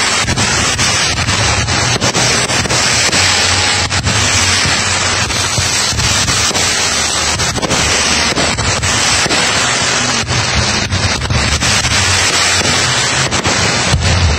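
Fireworks display: a continuous, rapid run of pops and crackles as comets and small star bursts go off, over a steady hiss and a low rumble.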